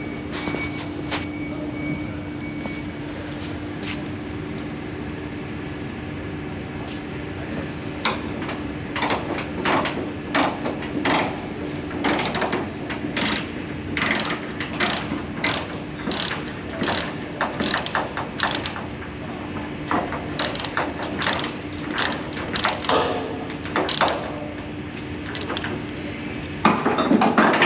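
Cargo tie-down ratchet being worked to release a strap: a run of sharp metal clicks, one or two a second, starting about eight seconds in, over a faint steady hum. A louder rushing scrape comes near the end.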